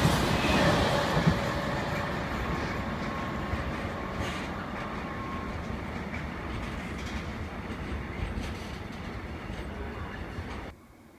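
Container freight train rolling past, its wagon wheels running on the rails with a faint squeal in the first few seconds, fading as the last wagons pull away. Cuts off suddenly near the end.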